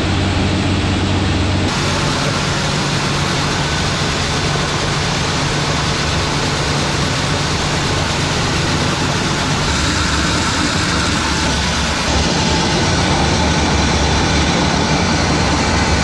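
Heavy farm machinery engines running steadily with a loud, low drone. The sound changes abruptly about two seconds in and again around ten and twelve seconds, as one machine's sound gives way to another's.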